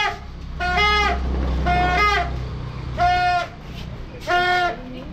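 Plastic toy trumpet blown by a small child: a string of short, loud honks, about one a second, each one a two-note toot.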